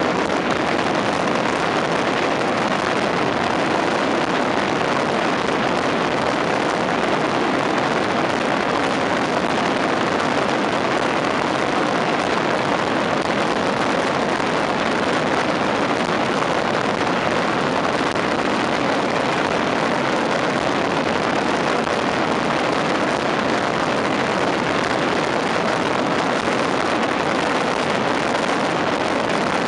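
Dense, unbroken barrage of ground-fired firecrackers, so many detonations that they merge into one steady crackling din with no pauses.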